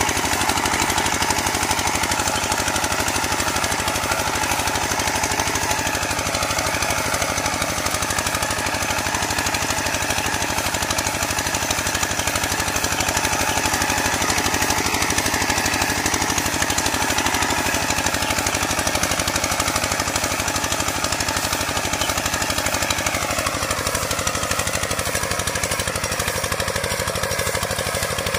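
Kubota walking tractor's single-cylinder diesel engine chugging steadily with a rapid, even beat as it pulls a disc plough through the soil.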